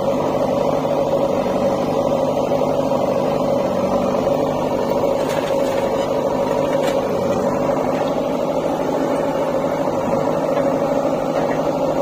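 JCB 3DX backhoe loader's diesel engine running at a steady speed, an even drone with a held tone, while the backhoe works.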